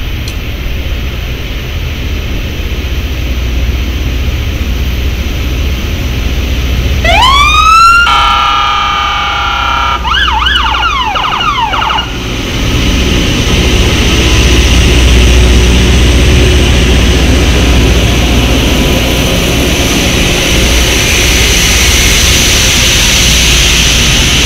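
Loram rail grinder train approaching and passing, a heavy rumble that grows louder toward the end. About 7 seconds in, a warning signal rises in pitch and holds a chord of several tones for about two seconds. It then wavers up and down in pitch until about 12 seconds in.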